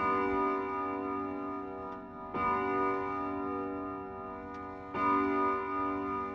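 A clock striking the hour with bell tones: three strokes about two and a half seconds apart, each ringing on until the next. Faint ticking can be heard behind them.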